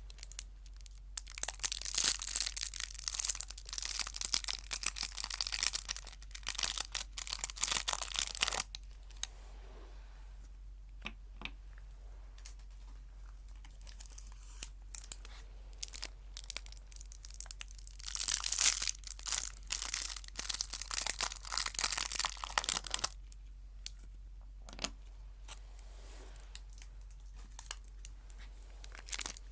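Packaging wrapper crinkling and tearing in two long bouts, the first about a second in and the second past the middle, with scattered small crackles between.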